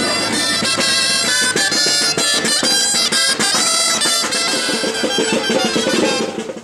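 Navarrese gaita, a reedy double-reed shawm, playing a fast, ornamented folk tune with a drum beating along. It fades out near the end.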